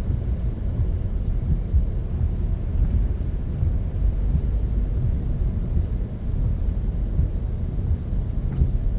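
Steady low rumble of a car driving, road and engine noise with no distinct events.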